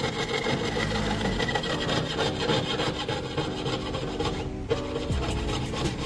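Hand tool rasping against metal in quick back-and-forth strokes, as when shaping a silver pendant by hand. The rasping stops about four and a half seconds in and background music comes up.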